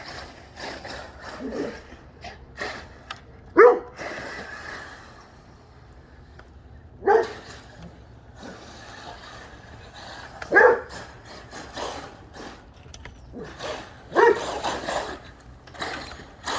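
A dog barking excitedly at the RC truck's steering servo: four loud single barks about three and a half seconds apart, with quieter yips and whines between them.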